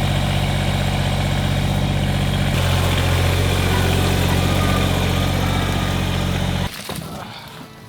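A motor running steadily. About two and a half seconds in it drops to a lower, stronger hum, and near the end it cuts off suddenly.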